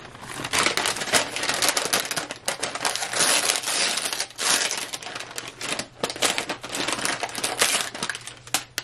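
Brown paper bag of Chipotle tortilla chips being unfolded and opened by hand close to the microphone: continuous crisp crinkling and rustling of stiff paper, with many small sharp crackles.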